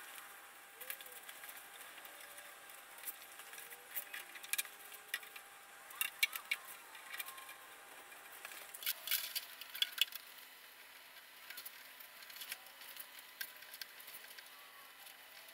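Scattered light clicks and rustles of cables being threaded through a plastic cable chain, the sound of handling close at hand, busiest in the middle, over a faint steady hum.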